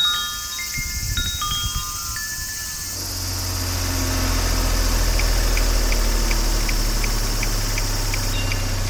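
Chimes ringing in clear high tones for about the first three seconds. Then a steady low hum with a hiss sets in, carrying a faint, even ticking of about three ticks a second.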